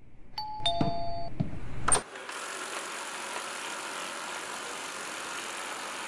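Two-tone doorbell chime, a higher note then a lower one (ding-dong), followed about two seconds in by a sharp click and then a steady hiss.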